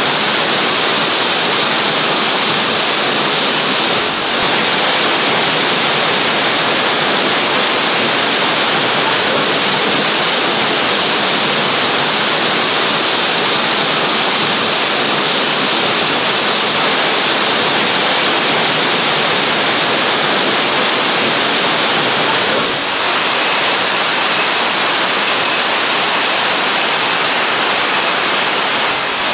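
Waterfall: a loud, steady rush of falling water, briefly dipping twice.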